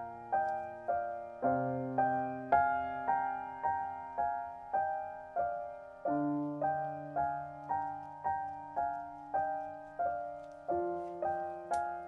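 Background piano music: an even run of notes, a little under two a second, over a low held bass note that changes about every four seconds.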